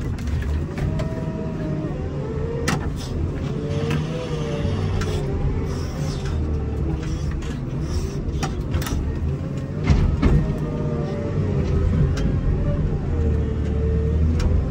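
Komatsu WA270 wheel loader's diesel engine running under load, heard from inside the cab, its pitch rising and falling as the machine pushes snow with a live-edge snow pusher. Scattered knocks and rattles come from the plow and the cab, with one louder thud about ten seconds in.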